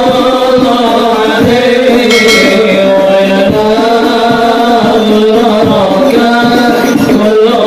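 Hadroh music: sholawat sung by voices in a flowing melody over frame-drum accompaniment.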